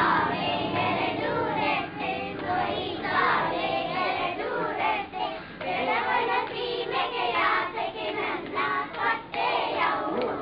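A group of children singing together, with hand clapping along.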